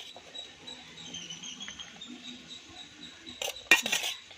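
Serving utensils clinking against a pot as rice is served, with a few sharp clinks about three and a half seconds in.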